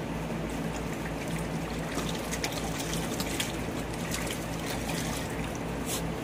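A dog splashing and pawing at shallow water in a plastic kiddie pool, small scattered splashes that come thickest from the middle on, over a steady low hum.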